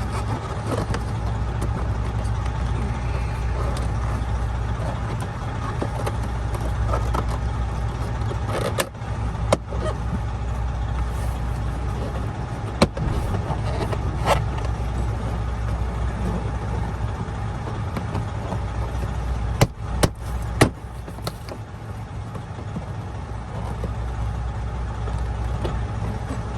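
Steady low hum of an idling engine, with a scattering of sharp knocks and clicks from dash parts being worked back into place, three of them close together about three-quarters of the way through.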